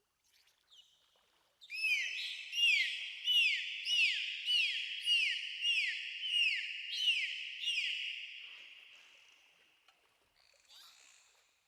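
Dolphin whistling: a quick series of about ten short falling chirps, each with a ringing tail, that fades away near the end.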